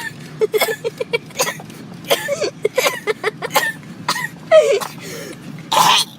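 A person coughing hard and repeatedly, in rapid fits of short hacking coughs, with a louder, longer cough near the end.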